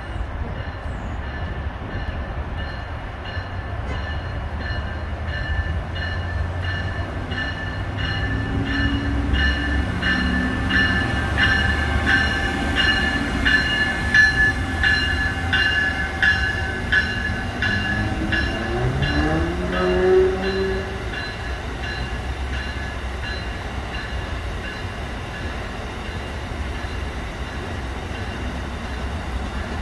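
An Amtrak passenger train of stainless-steel Amfleet coaches, hauled by an electric locomotive, running past on the tracks. There is a steady rumble of wheels on rail with regular clicks and a high steady whine over it, loudest midway.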